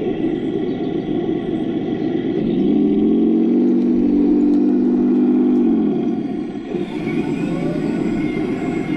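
Heng Long radio-controlled Sherman tank driving and turning, its engine-like running sound steady at first. From about two and a half seconds in it rises to a louder, even note, which falls away around six seconds.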